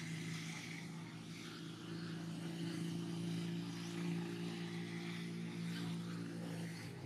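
A steady engine hum with a hiss over it.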